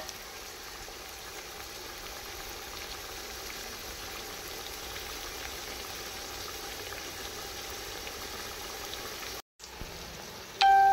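Sliced onions frying in ghee in a large pot, a steady sizzling, bubbling hiss as they cook toward light brown. The sound cuts out briefly near the end, then a brief ringing tone starts just before the end.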